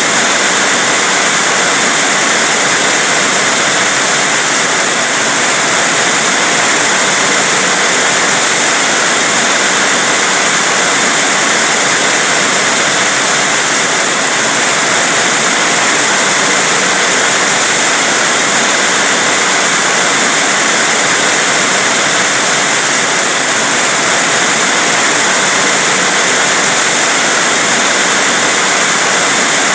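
Heavy rain falling steadily as a loud, unbroken hiss.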